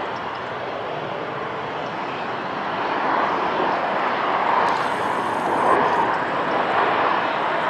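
Boeing 737 jet airliner on final approach, its engines a steady broad rush that grows louder about three seconds in as it passes closer, with a faint high whine briefly near the middle.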